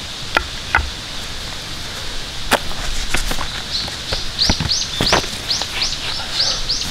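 Footsteps and light knocks on dry leaf litter and grass as camp gear is set down. From about halfway, a bird calls over and over with short, high, arching notes, roughly two a second.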